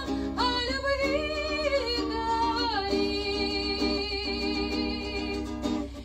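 A woman singing to her own acoustic guitar accompaniment, her voice with vibrato, holding one long note from about three seconds in.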